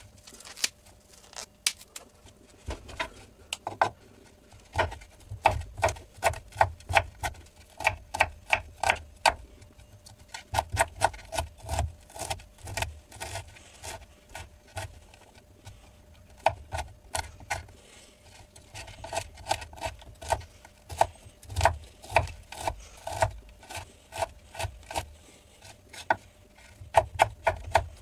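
Chef's knife chopping broccoli on a wooden cutting board: runs of quick knocks of the blade on the board, several a second, broken by short pauses.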